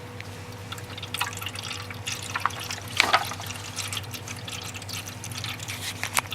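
Cat drinking fountain running: water trickling and dripping with irregular small splashes over a steady low hum, and a louder splash about three seconds in.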